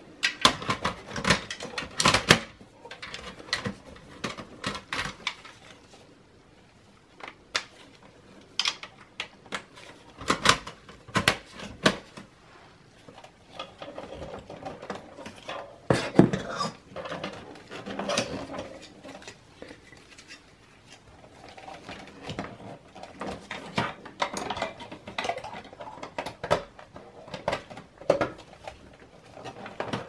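Irregular clicks, rattles and knocks of plastic connectors, cables and the sheet-metal drive cage being handled and closed inside a small-form-factor desktop PC case, with the loudest knock about sixteen seconds in.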